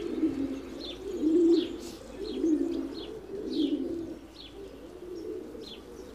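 Pigeons cooing in a run of low coos, about one phrase a second, with small birds chirping high over them.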